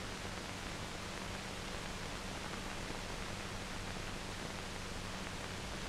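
Steady hiss from an old film soundtrack, with a low steady hum beneath it and no other sound.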